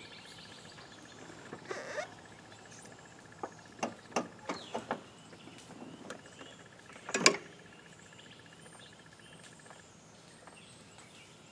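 A riding lawnmower failing to crank when the key is turned: no starter or engine sound, only a few faint clicks and knocks, the loudest about seven seconds in, with a thin steady high tone in the background. The lack of any response is the sign of a fully dead battery.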